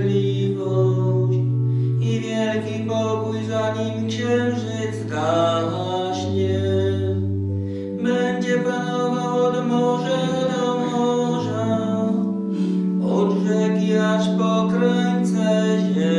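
Church singing of a liturgical hymn or psalm, with an organ holding steady bass notes under the voices.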